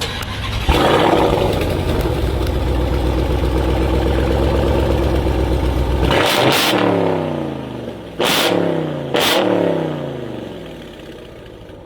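Supercharged 6.2 L HEMI V8 of a Dodge Charger Redeye running through a GT Haus Roll Racing cat-back exhaust with a deep tone. It runs loud and steady for about five seconds, then takes three quick throttle blips, the revs dropping after each, and settles back to a quieter idle near the end.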